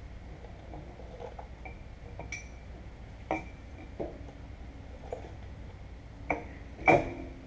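Metal clinks and knocks as a steel seal housing is worked onto a tractor's rear axle shaft: about five sharp knocks, some with a short metallic ring, the loudest a little before the end.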